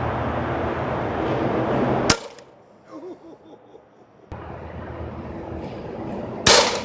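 A single sharp shot from a .22 Hatsan Gladius PCP air rifle about six and a half seconds in, over steady background noise.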